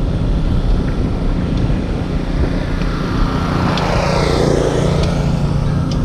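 Wind rushing over the microphone and rumble of a Xiaomi Mijia Pro electric scooter rolling on a paved path, with a steady low hum joining about halfway through.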